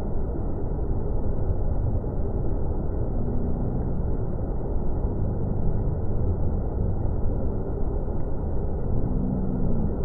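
Large multi-tiered waterfall pouring into a pool: a steady, low rush of falling water.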